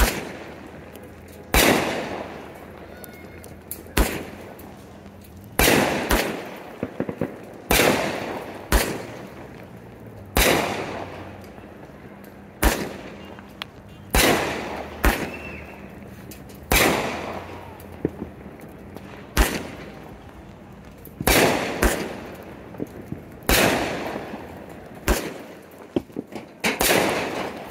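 Aerial firework shells bursting overhead in a steady barrage: a sharp bang about every one to two seconds, each followed by a rumbling echo that dies away.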